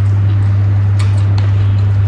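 A loud, steady low hum, with a few soft clicks and smacks of someone eating by hand about a second in.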